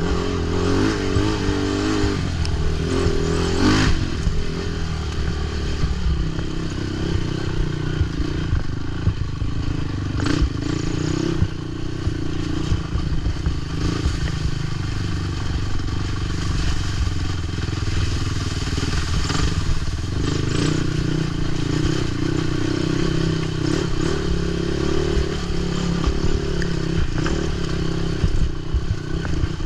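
Racing quad's engine running hard, its pitch rising and falling as the throttle is worked, with scattered knocks and rattles from the machine over rough ground.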